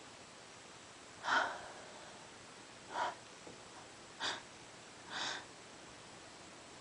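Four short, sharp bursts of breath from a person in an allergy sneezing fit, the first, about a second in, the loudest.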